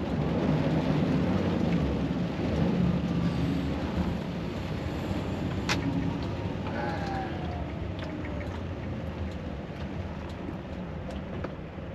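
Volvo truck cab on the move in the rain: steady engine drone under road and rain noise. A single sharp click comes about six seconds in, and a faint tone slowly falls in pitch in the second half.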